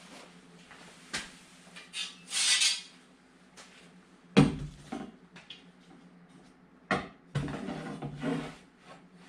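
Scrap lumber and tools being handled and set down: light clatters and a scrape, then two heavy wooden knocks, one about halfway through and one later, each followed by scraping.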